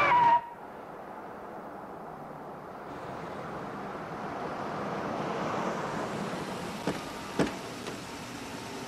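A car (a Volkswagen Passat) drives slowly up a lane, with a steady engine and tyre noise that swells towards the middle and then eases off. Two short clicks near the end fit its door being opened. A brief high-pitched tone cuts off abruptly right at the start.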